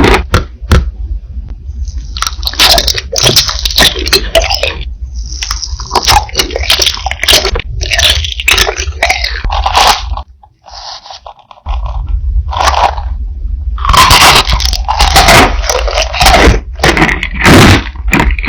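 Close-miked crunching and chewing of crisp food, bite after bite, with a short pause a little past the middle.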